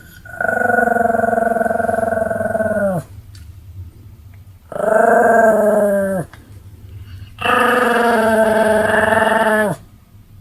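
A Pomeranian giving three long, drawn-out howls, each held steady and then dropping in pitch as it ends.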